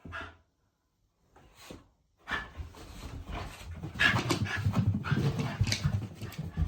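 Shiba Inu dog panting rapidly: a few short breaths at first, then fast, continuous panting from about two seconds in, louder from about four seconds.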